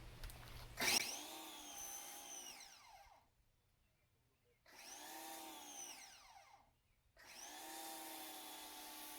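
Ryobi 1900 PSI electric pressure washer's motor running with a spray hiss as it drives the foam cannon. It starts about a second in and slides down in pitch before stopping. It runs again briefly and falls away, with dead gaps in between, then runs steadily near the end.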